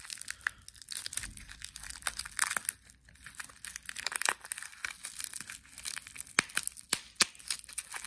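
Thin plastic bag crinkling and tearing as a metal Beyblade top is unwrapped by hand, in irregular crackles with a few sharp clicks.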